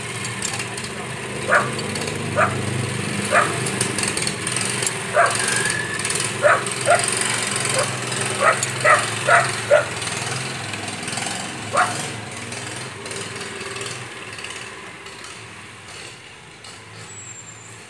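A dog barking in short, sharp barks, about a dozen of them, most bunched between about five and ten seconds in, over a steady low hum.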